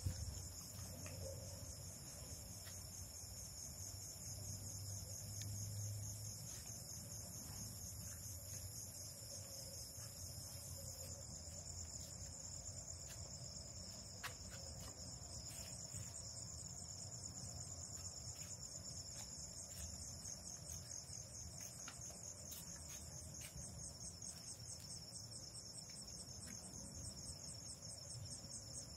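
A night chorus of crickets: a steady, rapidly pulsing high trill, with a second, higher trill that drops out about 11 seconds in. A faint low rumble sits underneath.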